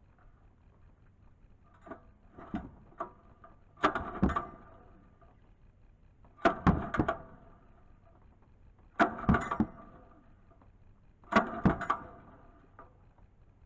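Robin EY18-3B single-cylinder engine being pull-started on its recoil starter four times, about two and a half seconds apart, each pull a short metallic clatter with a ringing tail, after a few lighter clicks. The engine cranks but does not catch, a sign of the spark plug getting no spark.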